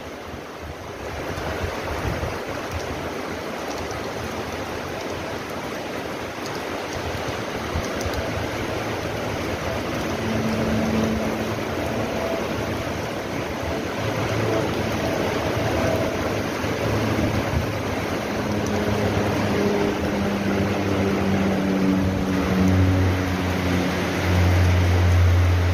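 Heavy tropical rain pouring steadily onto a tiled rooftop terrace, a dense, even hiss that slowly grows louder. A low steady hum joins it about halfway through and is strongest near the end.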